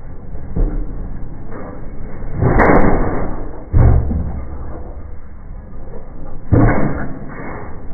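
Delmag F5 petrol explosion rammer firing twice, about four seconds apart: each firing is a loud bang that throws the rammer into the air. After the first bang, a heavy thud about a second later is the rammer landing on the ground.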